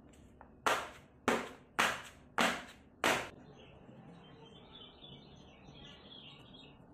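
Square metal baking pan full of sponge-cake batter knocked down on the work surface five times, sharp knocks about half a second apart, to settle the batter and release air bubbles. After the knocks comes the faint, rough scraping of cheese being grated over the batter.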